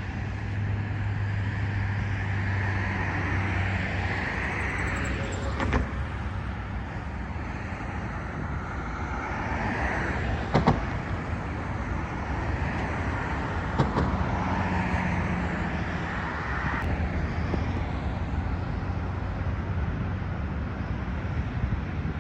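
Steady low rumble of a running vehicle, with a few sharp clicks.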